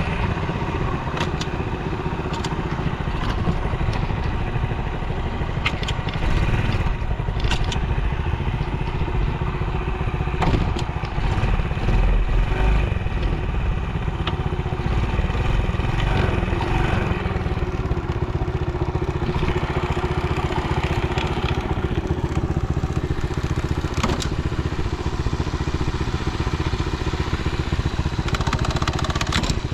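Honda Dax 70 (ST70) small single-cylinder four-stroke engine running steadily, with scattered short clicks and clatter.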